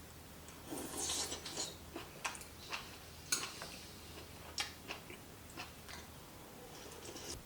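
Close-up chewing of firm, muscular duck gizzard: irregular wet clicks and crunches, with a denser bout of chewing about a second in.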